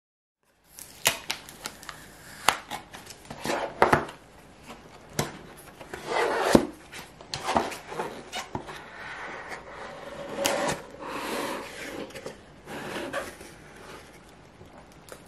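Hands opening and handling a gel polish kit's cardboard box and packaging: rubbing and sliding scrapes with many sharp clicks and taps, starting about half a second in.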